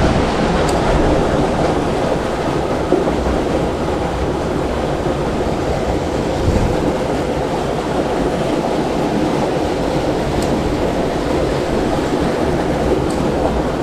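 Steady rushing of flowing creek water, with a few faint clicks.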